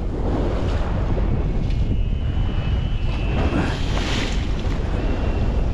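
Wind blowing on the microphone over the wash of sea waves, a steady low rumble. A faint thin high whistle holds for about two seconds, starting a little under two seconds in, and comes back briefly near the end.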